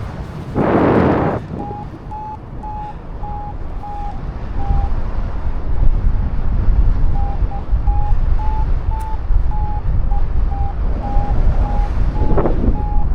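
Flight variometer beeping in short pulses, about two a second, with a gap of about two seconds midway and its pitch edging up and down, the beeping that signals the glider is climbing in lift. Heavy wind buffets the microphone throughout, with a loud gust about a second in.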